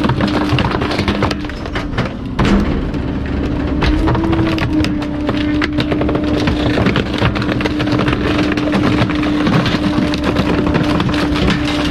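Bulk-waste garbage truck's hydraulic compactor crushing bulky items: wood cracking and splintering over a steady whine from the hydraulics.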